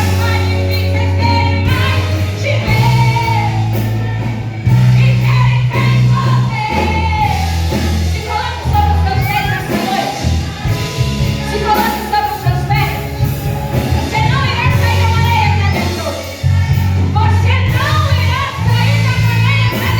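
A woman singing a gospel song with live band accompaniment, over sustained bass notes that change every second or two.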